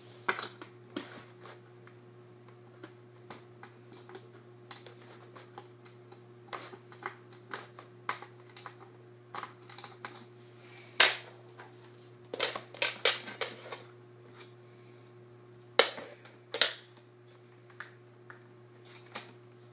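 Irregular plastic clicks and clacks from hands working a toy steering-wheel remote control and its box packaging, trying to free it. A handful of louder clacks come in the second half, over a steady low hum.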